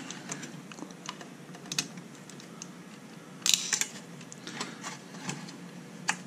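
Scattered small clicks and taps of wires and crimp terminals being handled against solid-state relays and a sheet-metal toaster-oven chassis, with a louder cluster of clicks about three and a half seconds in.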